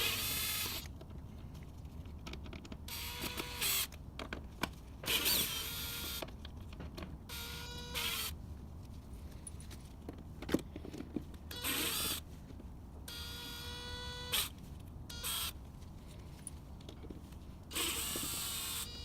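A cordless drill driving a Torx bit runs in about eight short bursts, with brief pauses and clicks between them, as it backs out long screws from an air filter box cover. The motor's whine drops in pitch as some bursts end.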